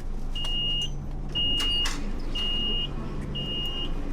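Four high electronic beeps, each about half a second long and about a second apart: a Beijing subway train's door-closing warning, over the steady low hum of the train, with two sharp clicks near the second beep.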